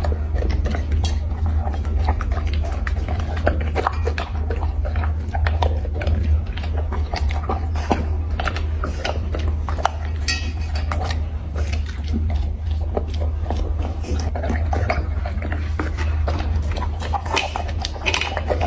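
A dog eating, chewing and biting its food with a quick, uneven run of short smacking and crunching clicks, over a steady low hum.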